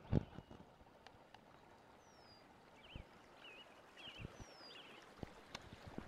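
Faint outdoor ambience of small birds calling: several short, wavering chirps and two thin descending whistles. A few sharp knocks and rustles come from handling on the leaf-strewn bank, the loudest just after the start.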